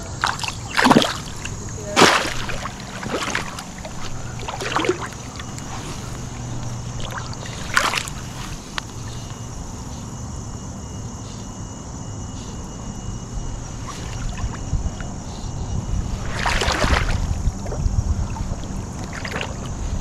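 River water splashing and sloshing around a wading angler as a small brown trout is let go and the fly rod is worked. There are several sharp splashes in the first few seconds and one more longer splash late on.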